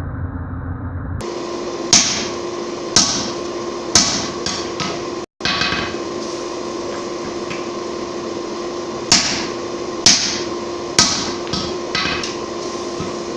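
Hand hammer striking hot steel on an anvil while forging a punch: single blows about a second apart, in two runs of heavy strikes with lighter taps between, over a steady hum.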